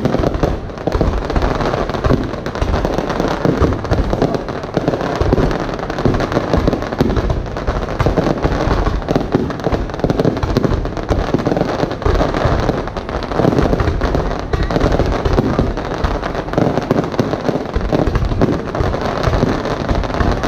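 Aerial firework shells bursting in a continuous barrage, the bangs following one another in an unbroken run with no pause.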